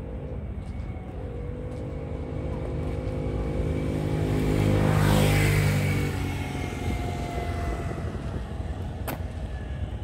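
A motor vehicle drives past, its engine hum growing louder to a peak about five seconds in, then fading as its pitch drops. A sharp click near the end.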